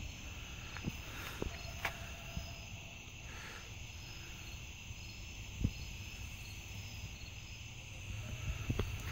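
Crickets chirping steadily, with a few scattered sharp clicks, one louder than the rest about halfway through, and a rising crackle near the end.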